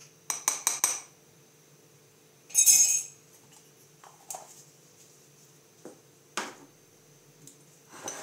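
Metal spoons and a small food-colouring bottle clinking against glass mixing bowls. There is a quick run of four clinks at the start, a louder short rasp about two and a half seconds in, and a few scattered single clinks after that.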